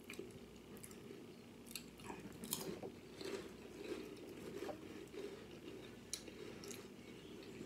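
Faint close-up chewing of a mouthful of ranch tuna salad, with wet mouth sounds and a few small sharp clicks.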